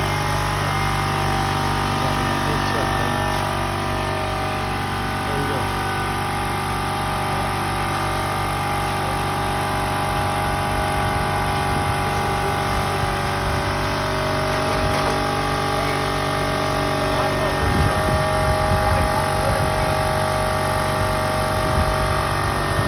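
Crane's diesel engine running steadily at constant speed, a loud even drone that holds without change.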